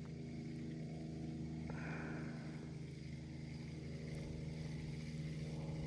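A steady, low mechanical hum with an even drone that does not change in pitch, with a brief higher sound about two seconds in.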